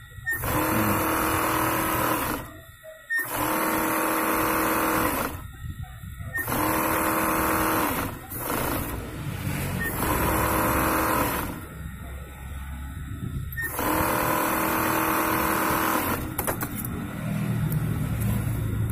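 Sewing machine stitching a sweatshirt seam in about five runs of roughly two seconds each, stopping briefly between them.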